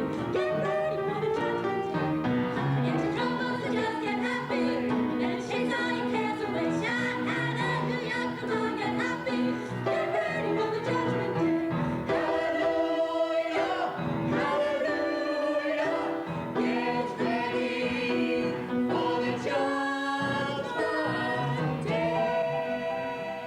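A group of voices singing a stage number in chorus, with instrumental accompaniment and long held notes.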